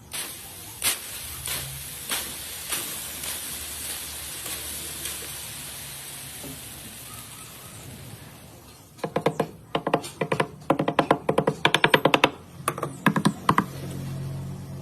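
Background music: a hissing wash with a beat about every 0.6 s, then from about nine seconds in a fast run of stuttering pitched notes.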